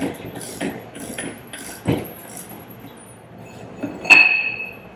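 A ratchet wrench and socket click and rattle in short strokes as the outer piston of a metal diaphragm pump is loosened. About four seconds in comes a sharp metal clink that rings briefly.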